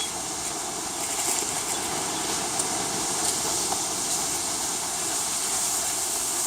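Steady background noise, an even hiss and rush with faint scattered ticks.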